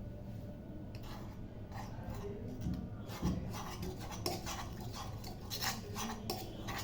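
A kitchen utensil scraping and clinking against cookware in a run of short scrapes and sharp knocks, busier from about four seconds in.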